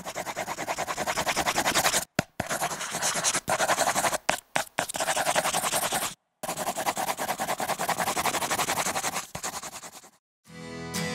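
Pencil scratching rapidly on paper in quick, closely packed strokes. It comes in several long runs broken by short pauses, and stops near the end, when acoustic guitar music starts.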